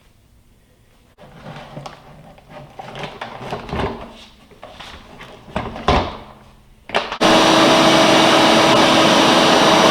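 Handling knocks, clicks and rustles, then about seven seconds in a shop vacuum switches on and runs with a steady motor whine and rush of air, working properly again with its filter bag replaced.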